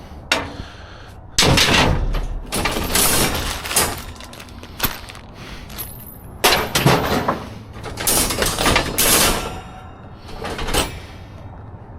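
Scrap metal being pulled about in a steel dumpster: an irregular series of loud bangs, clatters and scraping crashes, about seven in all, with a ringing clang among them.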